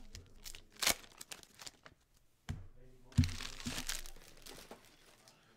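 Foil hockey-card pack wrappers crinkling as a stack of packs is handled, with scattered clicks and a couple of light knocks on the table; a sharp click about a second in and a stretch of rustling in the middle.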